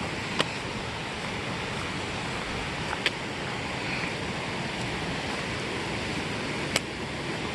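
Steady rushing of a mountain creek and its small waterfalls, with three sharp clicks spread through it.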